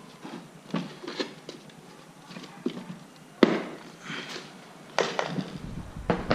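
Clicks and knocks of the hard plastic housing and connectors of a vacuum cleaner being handled and pried apart during disassembly, with two louder knocks about three and a half and five seconds in.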